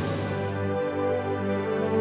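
Slow, soft background music of long held notes, as the wind and water noise fades out in the first half second.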